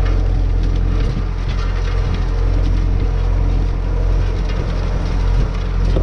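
Massey Ferguson 390 tractor's four-cylinder diesel engine running steadily under load, pulling disc harrows through ploughed ground.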